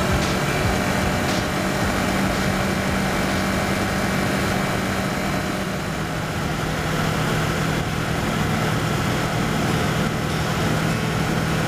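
Kawasaki Versys 650's parallel-twin engine running at a steady cruise, heard over a constant rush of wind and road noise. Its note dips slightly about halfway through.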